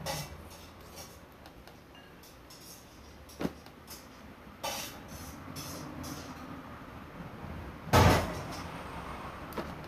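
A few light clicks and knocks over a low steady hum, then one heavy thump about eight seconds in.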